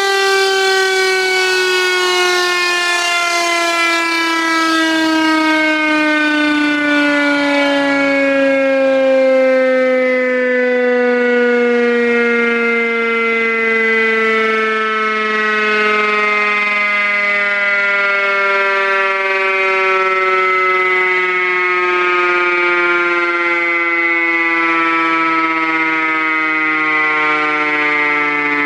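Klaxon CS8 electric motor siren sounding, a single loud tone that slides slowly and steadily down in pitch, with a second, lower tone coming in about halfway. The sound is muffled because a shutter is jammed shut, so no air can enter the rotor on that side.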